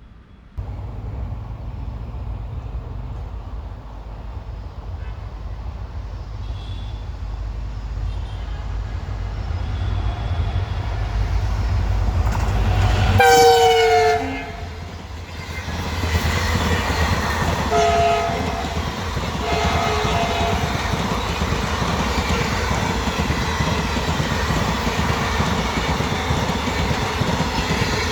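EMD WDG4 diesel locomotive approaching at speed with a deep rumble from its V16 two-stroke engine, then blaring its ALCo-type horn as it passes about halfway through, the horn dropping in pitch. ICF coaches of the express then roll past with a steady clickety-clack, with two more short horn notes a few seconds later.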